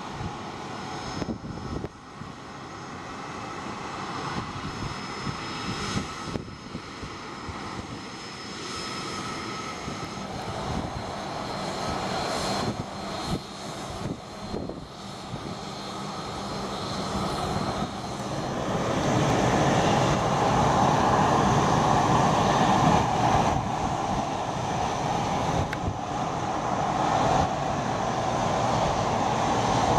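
Twin rear-mounted Rolls-Royce AE 3007 turbofans of an Embraer ERJ regional jet running as it taxis, a steady high whine over the engine noise. About two-thirds of the way through the engine sound grows clearly louder and stays up.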